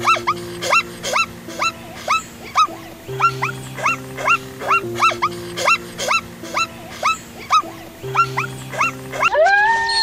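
Zebra calling: a rapid series of short yelping barks, about two or three a second, each rising then dropping sharply in pitch, over background music. A long wavering wolf howl begins near the end.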